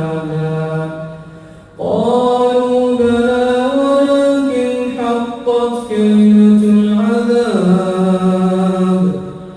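A male voice chanting Quran recitation in long, drawn-out melodic notes, with a short breath break about a second and a half in.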